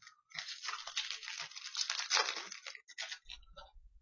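Foil wrapper of a hockey card pack crinkling as it is torn open by hand, a dense crackle lasting about two and a half seconds, followed by a few light clicks.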